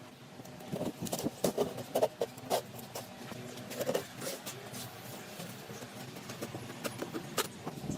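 Irregular light knocks and clicks of wooden pieces and hand tools being handled and set down on a workbench, between runs of a power tool.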